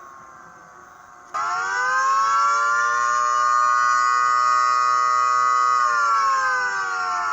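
Model 2T outdoor warning siren sounding a wail. Its tone is winding down at first, then about a second in it suddenly gets much louder and climbs to a steady pitch held for a few seconds, before winding down again near the end.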